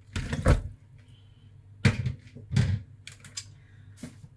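Plastic colander and bowl knocking and clattering together as raw chicken fillets are tipped from the colander into the bowl. There is a burst of clatter at the start, two sharp knocks about two seconds in, and lighter clicks after.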